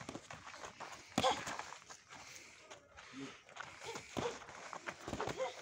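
Sparring boxers' feet shuffling and scuffing on bare dirt, with scattered knocks from gloved punches; the sharpest knock comes about a second in.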